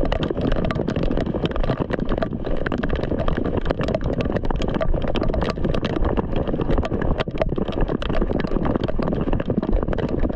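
Heavy rain falling, a dense continuous crackle of drops striking close to the microphone, with footsteps on wet grass and gravel underneath.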